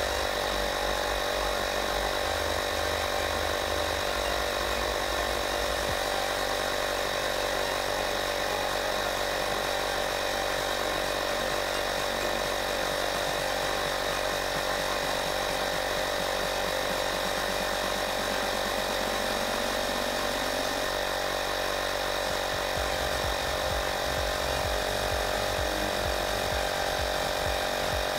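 Woscher 802D portable tyre inflator running steadily, its small electric air compressor humming evenly as it pumps a car tyre up, with the pressure climbing from about 28 toward 32 PSI late in the inflation.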